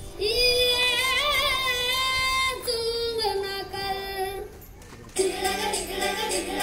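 A high solo voice singing two long held notes, the first with a wavering vibrato. After a short break about two-thirds of the way through, the singing resumes with a fuller sound, several parts together.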